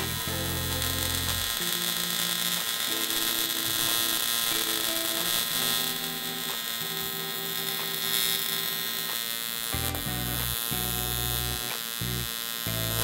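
TIG welding arc on aluminium angle, the AC arc giving a steady electric buzz; it cuts off abruptly at the very end.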